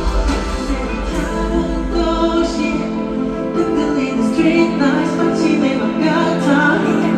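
A song: a solo vocalist singing slow, sustained notes with vibrato over instrumental accompaniment.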